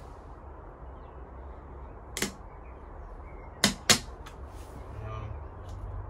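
Three sharp clicks from hand work at a car's front bumper, one about two seconds in and a quick pair near four seconds in, over a steady low rumble.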